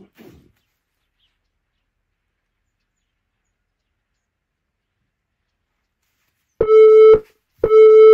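Interval timer's countdown beeps: two short, steady-pitched beeps a second apart near the end, marking the last seconds of a rest period. Before them, near silence apart from a faint brief rustle at the very start.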